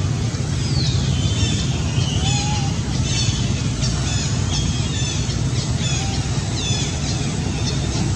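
Many short, high chirps from small birds, repeated over and over, above a steady low rumble.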